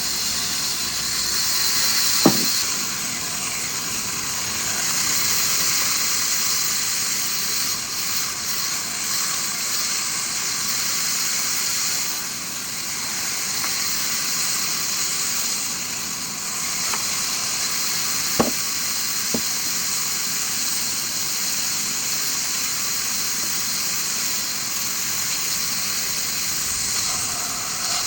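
A wood-cutting machine running with a steady hissing noise, with a few sharp clicks: one about two seconds in, and two close together past the middle.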